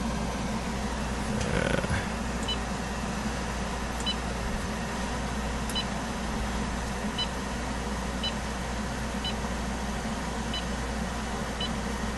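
Short high beeps from a CD/DVD duplicator's Athena III controller, one for each menu button press, about nine of them roughly a second apart, over a steady low hum.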